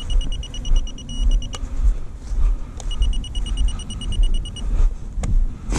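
Wind buffeting the microphone with a heavy, gusty low rumble. Over it come two runs of rapid high electronic beeps, about ten a second, each run lasting a couple of seconds.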